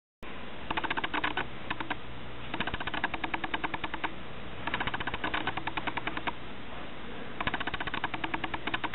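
Several runs of rapid, even clicking, each lasting a second or so, over a steady low hum.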